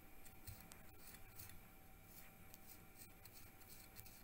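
Faint sounds of a kitchen knife scoring the rind of a raw pork shoulder: a few short, quiet scratches and ticks over near silence.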